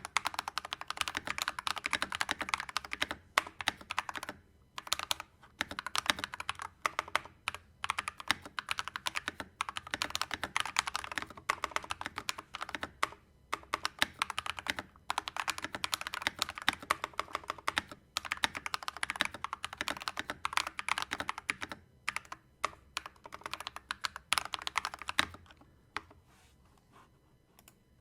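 Typing on a Redragon Kumara K552 tenkeyless mechanical keyboard: fast runs of keystrokes broken by short pauses, stopping about 25 seconds in.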